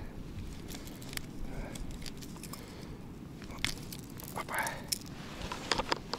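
Scattered small clicks and rattles of a hard wobbler and its treble hooks as gloved hands work them out of a pike's mouth, with a cluster of sharp clicks near the end.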